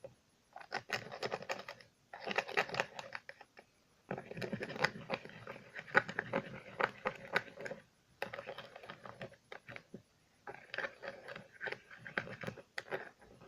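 A spoon stirring borax and water in a container, rapid clicking and scraping against the sides in about five spells with short pauses between them.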